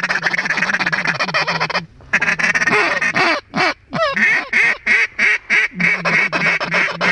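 Hand-blown mallard duck call giving hen calls. There is a fast, rolling chatter for the first couple of seconds, a brief break, and then a run of loud, separate quacks at about two a second.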